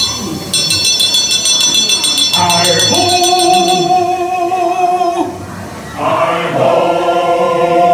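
Ride show music in the mine scene: male voices singing in chorus over music, with a quick run of bright bell-like chimes in the first few seconds and long held notes later.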